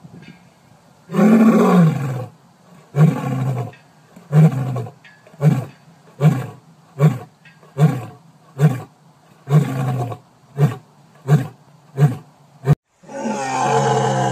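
Male lion roaring bout: a long full roar, then a run of about a dozen short roars a little under a second apart, each shorter than the last. After a brief break near the end, another male lion starts a long roar.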